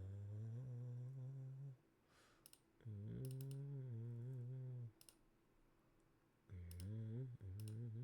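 A low male voice humming in three long held notes with slight bends in pitch, with a few light clicks, like a mouse or keyboard, between and over them.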